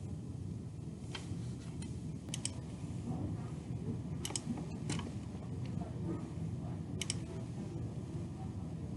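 Computer mouse clicks, single and double, about seven in all, spaced irregularly over a steady low background hum.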